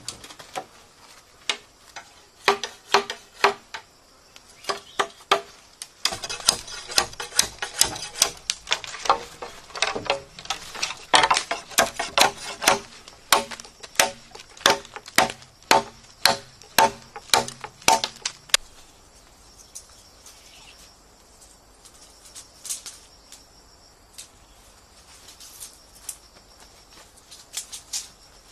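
Machete chopping and trimming green bamboo poles: a rapid run of sharp knocks, several a second, that stops about two-thirds of the way through. After that, insects buzz steadily and high in the background, with a few faint taps.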